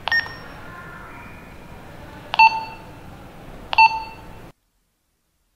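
Retevis RT33 walkie-talkie key-tone beeps as its buttons are pressed: one short higher beep right at the start, then two short lower beeps about a second and a half apart, over a faint hiss.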